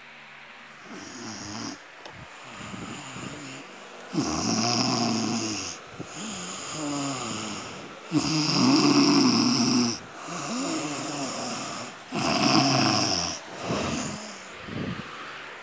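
A man snoring loudly in his sleep, a snore every second or two, about eight in a row.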